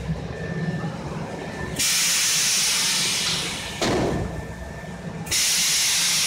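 High-frequency embossing and welding press with pneumatic air cylinders: two loud bursts of compressed air hissing, each starting abruptly and lasting about two seconds, the second starting about five seconds in. A short thud falls between them, over a low steady machine hum.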